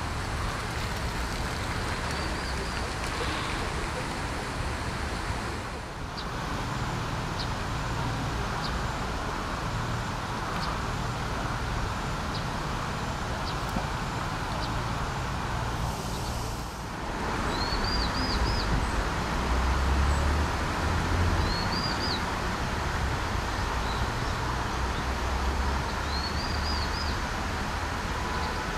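Steady outdoor background of a low road-traffic rumble and the rush of a shallow, rocky stream, with small birds giving short high chirps several times.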